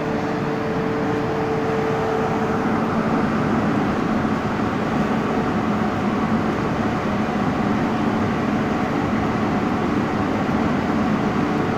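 Steady hum and hiss of an MTR M-Train standing at a busy station platform with its doors open, mixed with the noise of the passengers moving around it. A faint steady tone stops about three seconds in.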